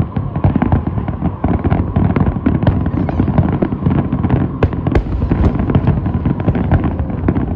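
Aerial fireworks in a dense barrage: many bangs a second run together into a continuous rumbling crackle.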